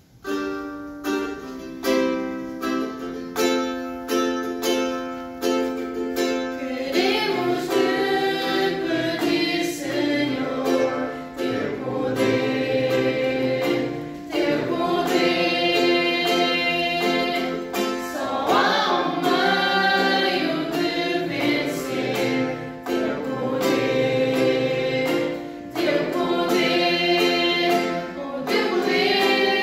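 Small mixed group of young voices singing a hymn in unison to a strummed ukulele. The ukulele opens alone with steady chords, and the voices join after several seconds.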